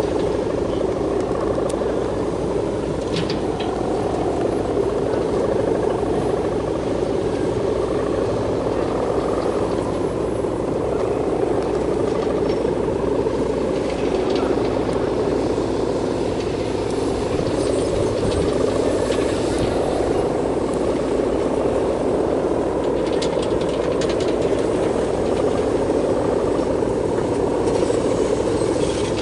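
Steady drone of the hummer bows (guangan) on large traditional Balinese kites flying overhead, a low, even humming with a faint wavering tone above it.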